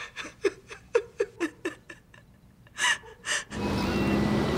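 A woman sobbing: short, catching gasps with little whimpers, then two sharp, hard inhalations near three seconds in. About three and a half seconds in, her crying cuts off and a steady street hum takes over.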